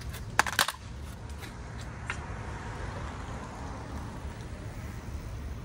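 Hand tools clinking a few times about half a second in, with one more faint click a little later, over a steady low rumble of background noise.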